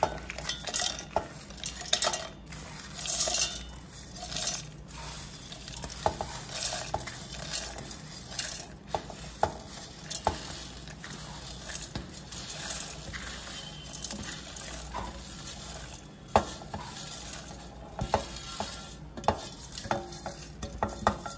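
Dry-roasted lentils, seeds and whole spices pouring by the handful into a steel mixer-grinder jar: repeated rattling and pattering of grains on steel, with clicks of fingers and spices against the steel plate and jar.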